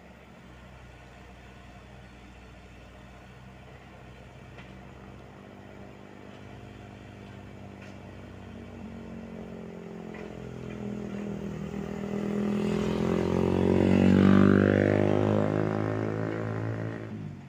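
Komatsu PC78UU mini excavator's diesel engine running steadily. Over the second half a louder engine sound swells up, its pitch sliding down and back up at its loudest about three seconds before the end, then cuts off suddenly.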